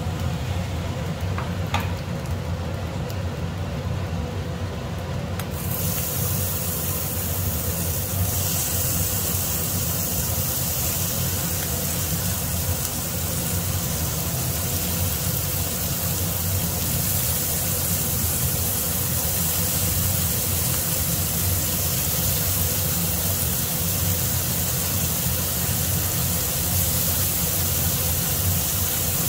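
Marinated beef strips sizzling in butter and sauce in a hot nonstick frying pan as they are laid in: the steady hiss starts about five seconds in and grows fuller around eight seconds as more strips go down. A steady low hum runs underneath.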